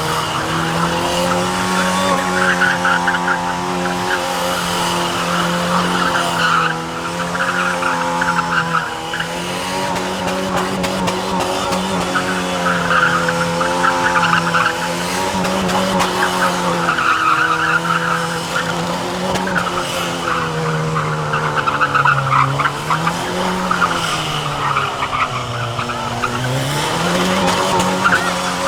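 A car doing a burnout: its engine is held at high revs, with the pitch wavering up and down and dipping twice near the end, over the continuous screech of spinning tyres.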